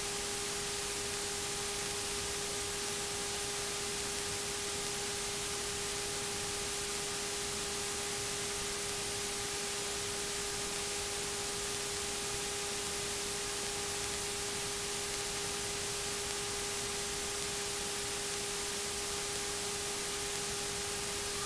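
Steady static hiss with a constant electrical whine underneath, the sound of a light aircraft's intercom/radio audio feed with no one talking.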